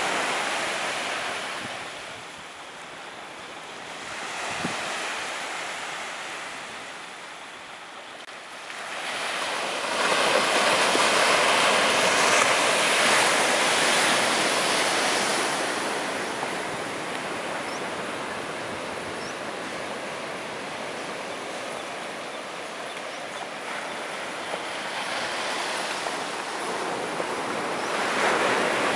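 Small waves breaking and washing up a sandy beach, the surf swelling and fading. The loudest wash comes about ten seconds in and lasts several seconds.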